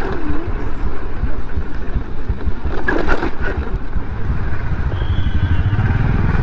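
Scooter engine running as it is ridden at low speed, with wind noise on the microphone. There are a few short knocks about three seconds in.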